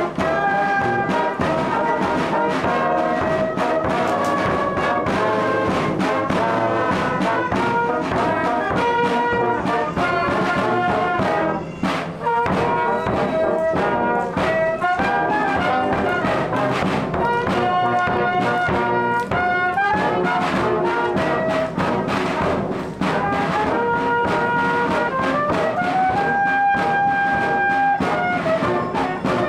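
Music led by brass instruments, a melody of held notes stepping up and down, with a brief break about twelve seconds in.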